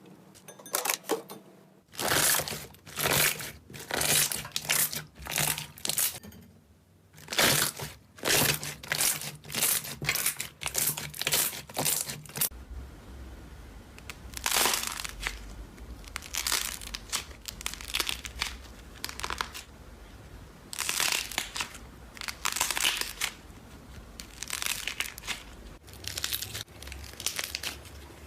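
Slime being pressed and squeezed by hand, making short crinkly, crackling squishes about two a second, which become sparser and softer about halfway through.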